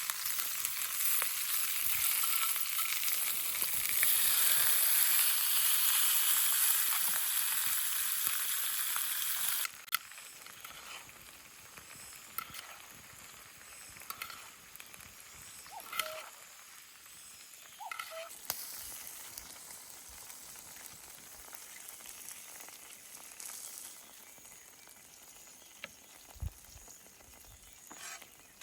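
Sea bream sizzling as it grills, a loud steady hiss that cuts down suddenly about ten seconds in to a quieter sizzle with occasional light clicks and taps.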